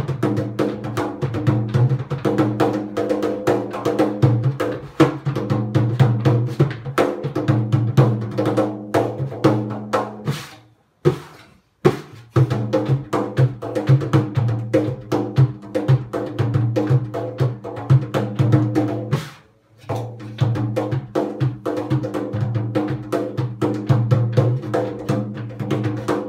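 Haitian hand drum played with bare hands in a quick, dense rhythm of strokes. The playing stops for about a second near the middle and pauses briefly again a few seconds later.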